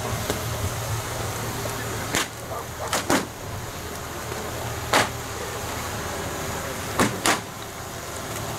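Large bonfire of burning joss paper under a wooden royal boat: a steady rush of fire broken by six sharp cracks. There is one about two seconds in, a close pair about three seconds in, a loud one about five seconds in, and another close pair about seven seconds in.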